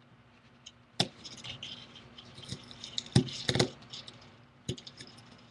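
Small hard clicks, taps and light scraping from a metal pry tool and fingers working on an opened Kindle Fire tablet's frame and tape. There is a sharp tap about a second in, two or three louder clicks around three seconds in, and another near the end.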